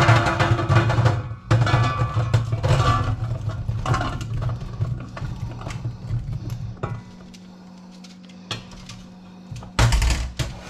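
Chunks of peeled potato tumbling from a metal tray into a black perforated pan insert, a dense run of knocks and thuds that thins out after about six seconds. A short, loud clatter comes near the end.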